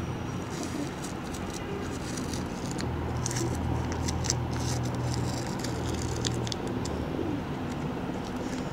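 Sheet of paper being handled and shifted by hand, giving scattered short clicks and scratches, over a steady low motor hum.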